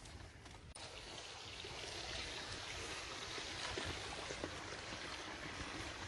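Shallow mountain stream running over rocks: a steady rush of water that swells about a second in and then holds steady.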